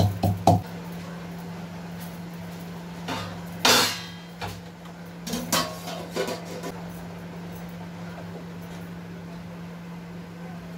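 Stainless steel pots and lids knocking and clanking as they are handled on a gas stove, with one loud metallic clatter about four seconds in and a few lighter clanks after it, over a steady low hum.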